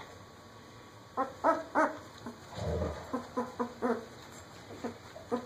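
Ten-day-old German Shepherd puppy whining and squeaking in short high calls, in little runs of two or three. A low muffled thump about two and a half seconds in.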